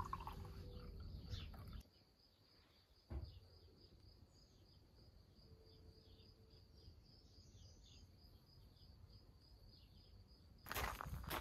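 Faint outdoor garden ambience: a steady high trill with scattered short bird chirps. There is a single knock about three seconds in, and footsteps begin near the end.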